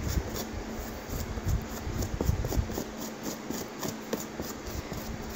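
Sponge brush rubbing thin paint over tacky, stain-coated plastic sheeting, giving irregular soft scrubbing and small sticky crackles, over a steady fan hum.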